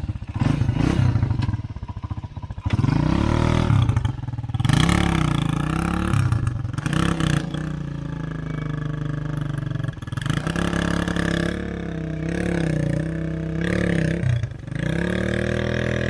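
Small motorcycle engine revving up and down again and again as it pulls away carrying a heavy load of logs on a rough dirt track.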